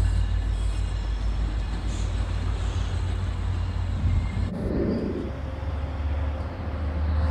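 Steady low rumble of an MBTA commuter train rolling past. About halfway through the sound cuts abruptly to a different, similar low rumble.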